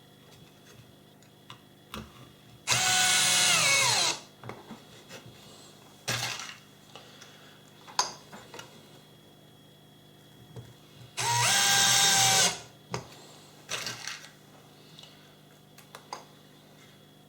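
Electric drill-driver driving short wood screws in two bursts about eight seconds apart, each lasting about a second and a half, its whine dropping in pitch as the screw pulls tight. Light clicks and knocks of handling fall between the bursts.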